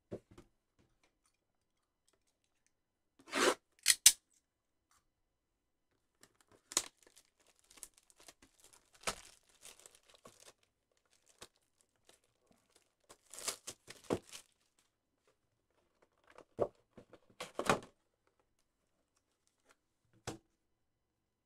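Packaging of a trading-card hobby box being torn and crinkled off, then the cardboard box handled and opened, in a string of short separate rips and rustles, the loudest about four seconds in.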